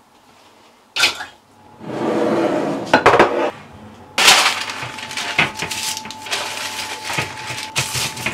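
A metal Zenker baking tray knocked and slid on the worktop, then baking parchment rustling and crackling loudly as it is laid on the tray and smoothed flat by hand.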